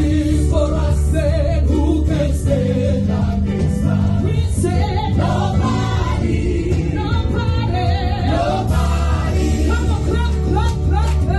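Gospel worship music: a group of voices singing together over a band with a steady bass.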